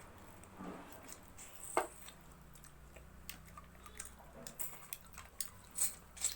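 Close-miked eating: wet chewing with scattered mouth clicks and smacks, one sharper smack a little under two seconds in and several more near the end.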